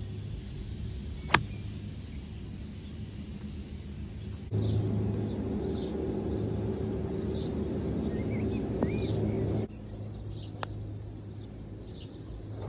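A single crisp strike of a golf iron on the ball about a second in. It is followed by open-air ambience with birds chirping over a low steady hum, and a lighter click near the end.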